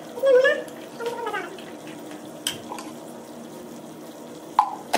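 A steel ladle stirs and sloshes liquid in an aluminium pot of soup on the stove, knocking sharply against the pot twice. Brief voices are heard near the start.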